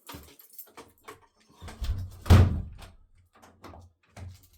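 A door being shut with a heavy thump about two and a half seconds in, among smaller knocks and clicks of handling.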